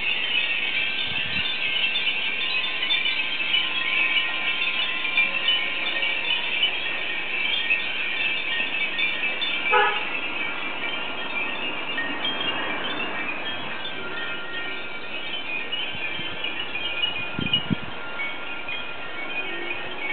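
Many glass wind chimes (fūrin) ringing constantly in a strong wind, a dense high tinkling, with one louder chime a little before halfway.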